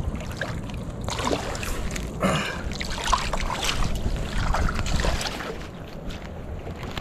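Low wind rumble on the microphone, with irregular rustling and scraping of the camera being handled and moved, busiest from about one to five and a half seconds in.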